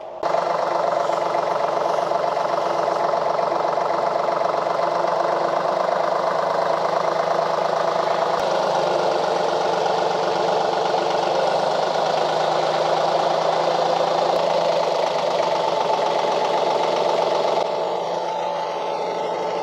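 Compact tractor's engine running steadily while its front loader and boom pole lift and carry a bundle of metal roof panels. The sound drops a little in level near the end.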